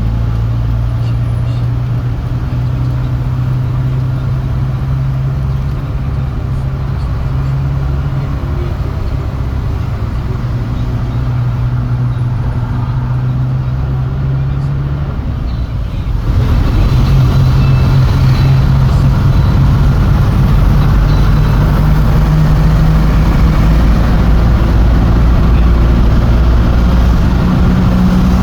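Motor vehicle engine running steadily amid city road traffic, getting louder about halfway through.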